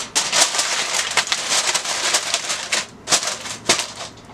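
Aluminium foil crinkling and crackling as it is pressed and crimped down over a bowl, stopping near the end.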